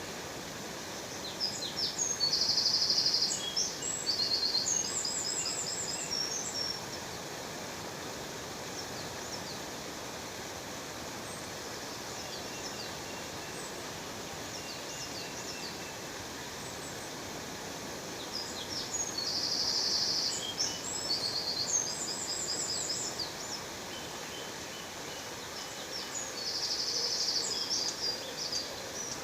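Steady rushing of a waterfall, with a small songbird singing high, rapid trilled phrases in three bursts: a few seconds long near the start, again past the middle, and once more near the end.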